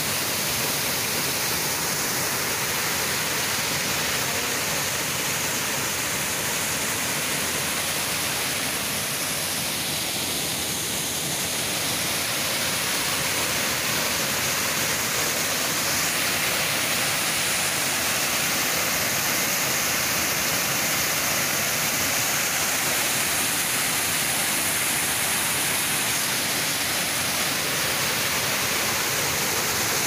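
Waterfall pouring over rock and splashing into a pool, a steady rush of water, a little louder in the second half.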